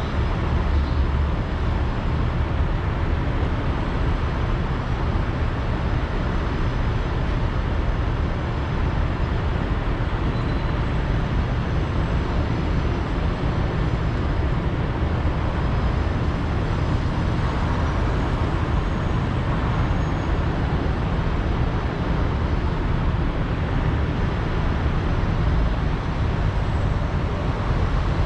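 City street traffic: cars driving through an intersection, a steady wash of engine and tyre noise.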